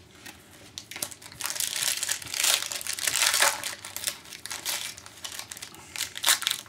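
Foil hockey card pack wrappers crinkling and crackling as the packs are handled and opened, densest in the middle and thinning to scattered crackles near the end.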